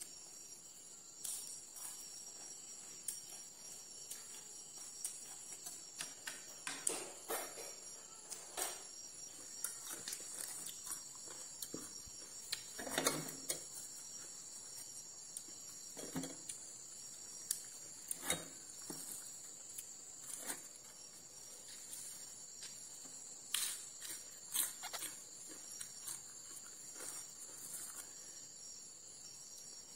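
Crickets trilling steadily, with scattered clicks and soft knocks from spoons, bowls and food being handled; the loudest knock comes about thirteen seconds in.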